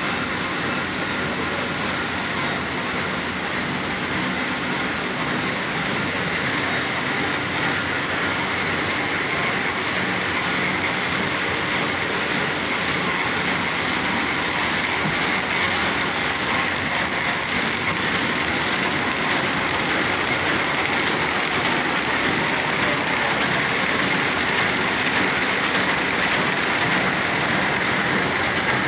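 Roll-fed paper bag making machines running: a steady, even mechanical din with no distinct beats.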